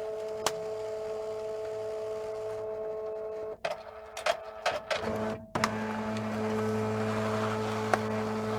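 Office machine running with a steady, printer-like hum. In the middle it gives a run of clicks and short knocks, then settles into a deeper, steady drone.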